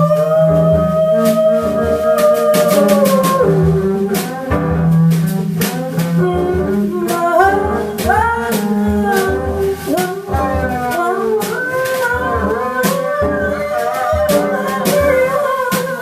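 Live jazz quartet: a female vocalist sings long, gliding lines over piano, plucked upright bass and a drum kit with steady cymbal ticks.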